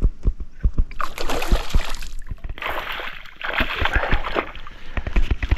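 A hooked bass thrashing and splashing at the water's surface as it is reeled up beside the boat, with the splashing heaviest about halfway through. Scattered small clicks and knocks sound throughout.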